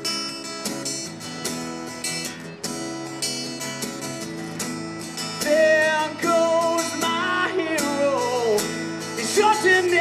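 Acoustic guitar strummed by a busker, with a voice singing over it from about halfway through.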